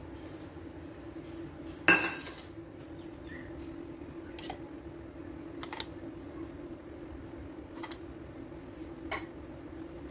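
Metal spoon clinking against a glass bowl and dishes while scooping and spreading cream: one loud ringing clink about two seconds in, then several lighter clinks a second or two apart, over a steady low hum.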